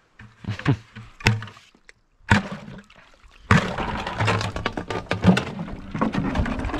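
A plastic five-gallon bucket dipped into a shallow puddle, with a few knocks and splashes at first. About three and a half seconds in, a steady gurgle starts as water runs into the tipped bucket.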